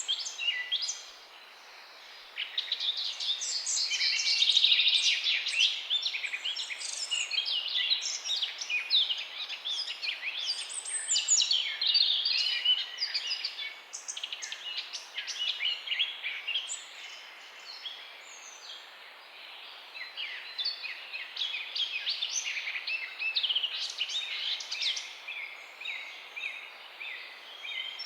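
Morning chorus of several songbirds chirping and trilling together over faint steady background hiss, with a brief lull near the start.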